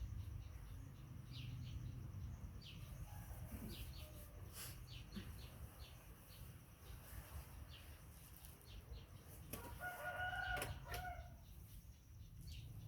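Faint outdoor ambience: small birds chirping in short, scattered notes over a low steady rumble, with one brief pitched bird call about ten seconds in.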